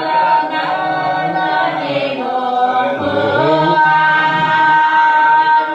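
Voices singing together in long held notes, like a choir or chant.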